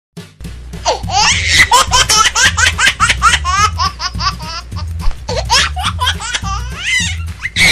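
Long run of high-pitched laughter, many quick rising and falling syllables, over background music with a steady beat.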